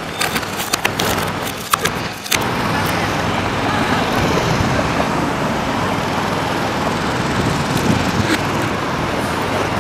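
Outdoor city street noise, a steady traffic wash, as a flatland BMX bike works on concrete pavement; a run of sharp clicks and knocks comes in the first two and a half seconds.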